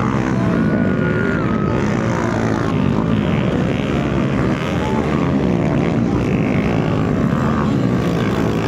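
Motocross dirt bike engines running and revving on the track, the pitch rising and falling as the bikes accelerate and pass.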